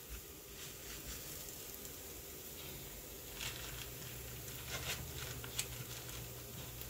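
Semolina dough squares sizzling faintly in a hot ridged grill pan, with a few soft clicks and a low steady hum coming in about three seconds in.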